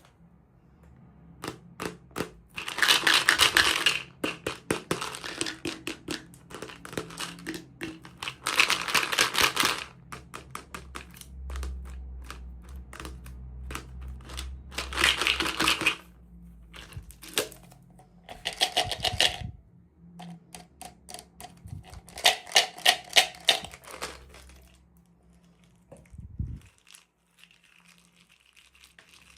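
Plastic packaging being handled and opened: runs of rapid clicks and several bursts of crinkling, each a second or two long.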